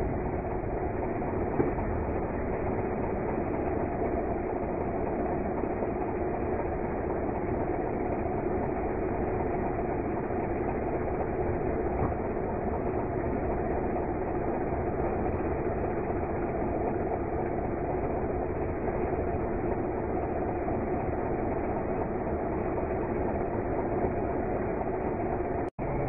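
Backhoe loader's engine running steadily under load, with a constant hum, as the backhoe arm digs. The sound drops out for an instant just before the end.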